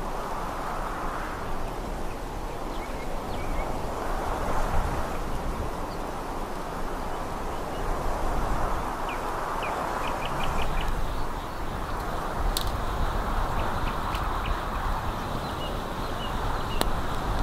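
Gusty wind rushing, swelling and easing every few seconds, with short bird calls scattered through, a quick run of calls about nine seconds in, and a few sharp clicks near the end.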